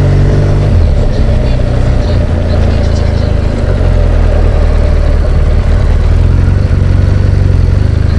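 BMW R1200GS Adventure's flat-twin boxer engine running while under way, its note dropping about a second in, then holding steady and rising again near the end.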